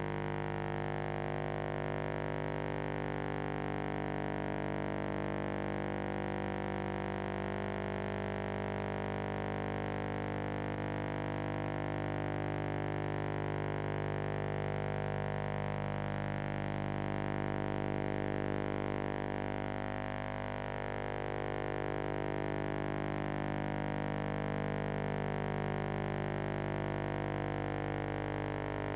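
Background music: a sustained synthesizer drone of held chords, with slow sweeping shimmers through its tones every few seconds.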